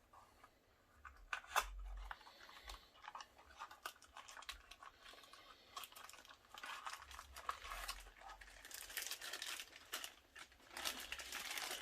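Plastic packaging being handled and opened: irregular crinkling and tearing with scattered clicks and knocks, busiest in the second half.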